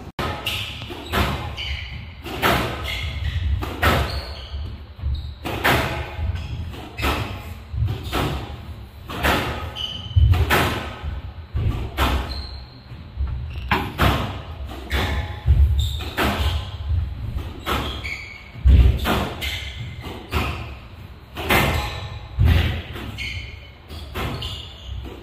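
Squash rally on a glass court: the ball cracks off the rackets and thuds against the walls about once or twice a second, irregularly. Short squeaks sound between the hits.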